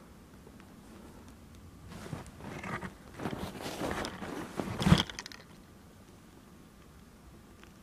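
Rustling and crunching handling noise as the camera or rifle is shifted, ending in one sharp knock about five seconds in.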